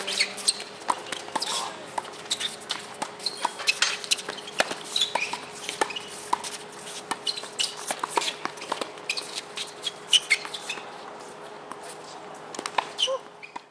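Tennis balls being struck by rackets and bouncing on a hard court during a doubles rally: many sharp pops in quick, irregular succession, with short high squeaks among them and a faint steady hum underneath.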